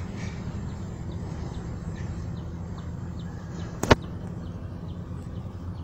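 Home-built electric boat thruster running with a steady low hum. The builder finds its motor too weak to push the boat with much force. A single sharp click about four seconds in.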